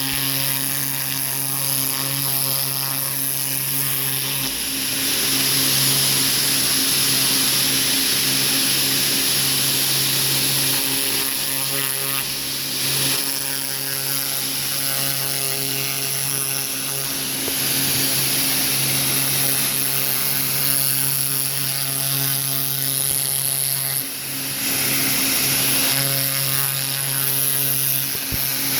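Pressure washer with a turbo tip running steadily: a constant machine hum under a loud water-spray hiss that swells and fades several times.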